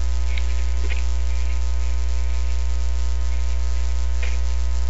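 Steady electrical mains hum with a ladder of overtones, loud and unchanging, with a few faint short ticks over it.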